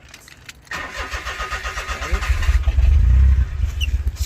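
A Daihatsu car's engine being cold started: the starter motor whirs and cranks for about a second and a half, then the engine catches and runs on at a loud, steady fast idle.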